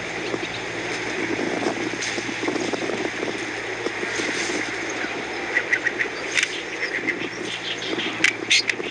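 Bar-winged prinias (ciblek) calling at the nest: clusters of short, sharp high chirps start about halfway through and repeat several times, over a steady rushing background.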